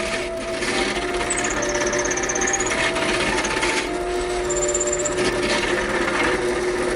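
Power tool cutting into a cedar wood cookie, running steadily, while the clock-mechanism hole is bored out.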